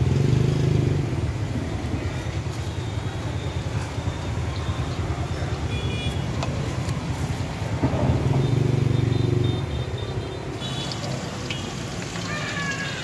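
Street traffic: motor vehicles running past, the low engine hum swelling twice, at the start and again about eight seconds in.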